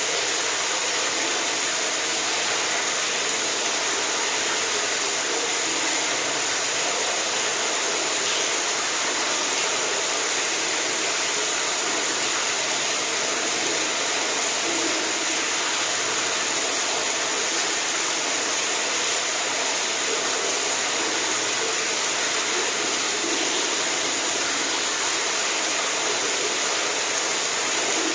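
Steady rushing water, an even hiss with no breaks or changes.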